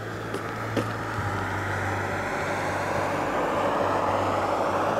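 Road noise from a moving car: a steady low engine hum under a rushing sound of tyres and air that grows a little louder.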